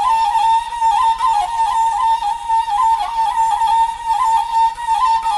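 Flute playing a solo instrumental passage of a Sumatran folk song: a single melodic line, ornamented with quick turns and wavers in pitch, from an old cassette recording.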